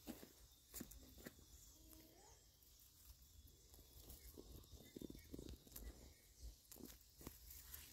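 Near silence: faint rustling and snapping of green onion stalks being picked by hand, with a faint chicken cluck about two seconds in.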